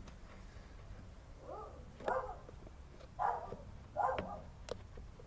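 A dog whining and yipping: four short, high calls that bend in pitch, spread over a few seconds.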